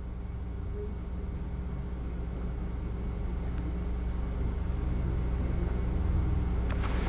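Steady low hum of room background noise, slowly growing louder, with a couple of faint clicks.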